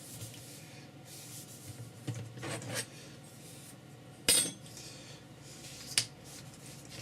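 Handling sounds of board and tools on a workbench: some rustling and scraping, then a loud knock a little over four seconds in and a sharp click about two seconds later, like a tool or piece of board being set down.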